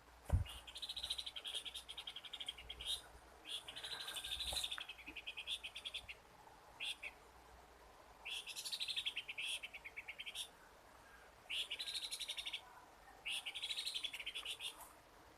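An animal's rapid, high-pitched pulsed trill, repeated in about six bouts of one to two seconds each with short pauses between. A thump sounds near the start.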